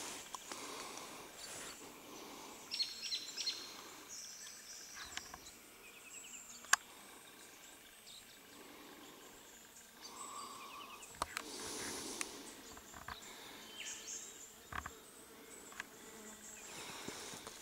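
Faint rustling of footsteps through grass and scrub, with now and then a sharp crack of a twig and a few short bird chirps.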